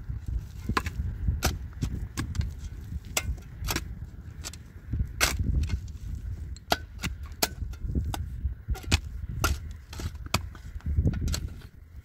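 Sharp, irregular knocks and taps, about one or two a second, over a low rumble.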